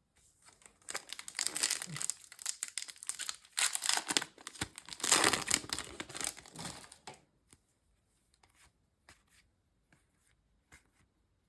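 Foil Yu-Gi-Oh booster pack wrapper being torn open and crinkled, loudest about five seconds in, then a few faint, scattered clicks for the rest.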